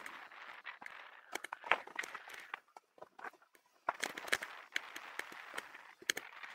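A bicycle ridden along a road, heard from a camera mounted on the bike: irregular clicks and rattles over a steady hiss of tyre and riding noise, easing off for about a second shortly before the middle.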